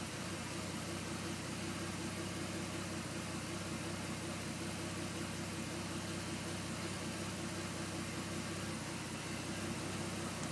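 Car engine idling steadily at an even pitch, with no revving.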